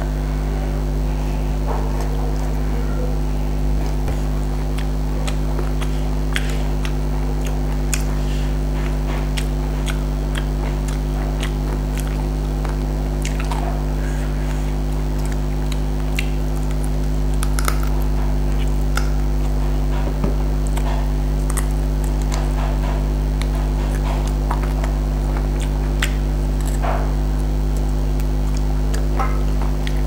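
Close-miked eating by hand: chewing, small wet mouth clicks, and fingers squishing rice and chicken, heard as scattered short clicks over a steady low hum.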